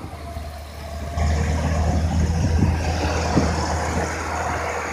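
Diesel engine of a PQRS track-relaying gantry running steadily as the gantry travels with a lifted panel of concrete sleepers. The engine gets louder about a second in.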